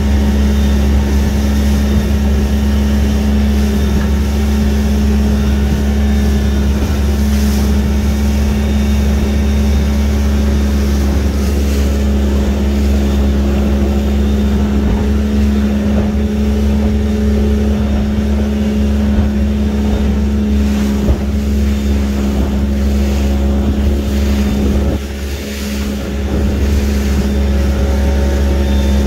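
Small fishing boat's engine running steadily while underway, a constant low hum with a steady tone above it. It eases off briefly for a moment late on, then picks back up.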